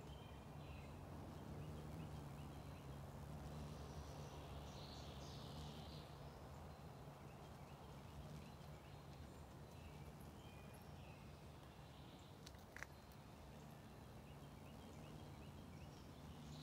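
Faint garden ambience: distant birds chirping over a steady low hum, with one short sharp click about thirteen seconds in.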